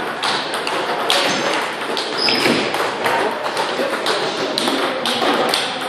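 Table tennis balls clicking off bats and the table during rallies, with more ball clicks from neighbouring tables: sharp, irregular clicks several times a second.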